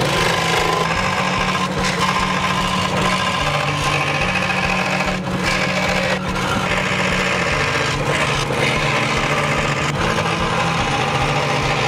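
Ryobi 405 mm scroll saw running steadily, its blade cutting through a sheet.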